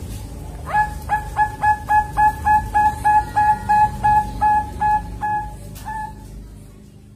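Young zebra dove (Bangkok-type perkutut), about two months old, giving a quick run of about seventeen short cooing notes, roughly three a second, spacing out near the end: a juvenile still learning its song.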